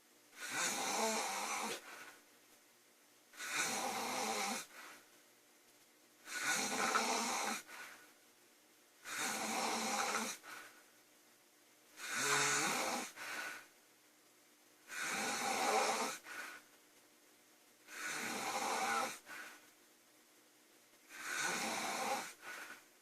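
A woman snoring loudly: eight snores in a steady rhythm, one about every three seconds, each lasting a second or so, with quiet gaps between them.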